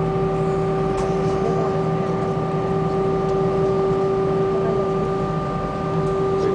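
Cabin noise of an Airbus A319 airliner on the ground with its jet engines running at a steady setting: an even hum with a few steady tones over it, not rising.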